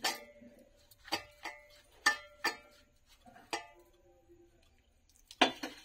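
Sharp metallic clinks on a stainless steel mixing bowl, about seven at uneven intervals, some leaving the bowl ringing briefly, as flour dough is mixed by hand.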